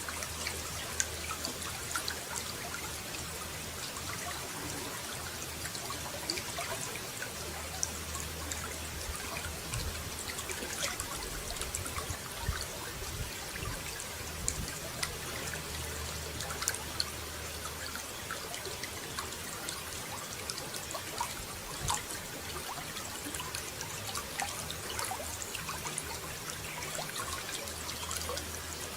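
Running water trickling and splashing steadily, with many small drip and splash ticks. A low hum fades in and out underneath it.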